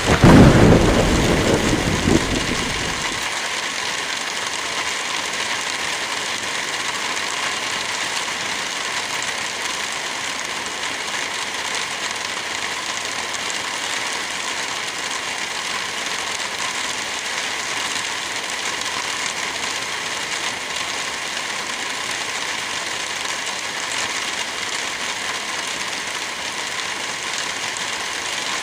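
Steady rain falling, with a low roll of thunder at the start that peaks almost at once and fades away over about three seconds.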